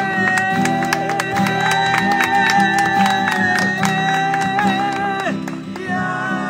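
Two acoustic guitars strummed while the men sing a melody in long held notes. The held note breaks off about five seconds in and a new one begins near the end.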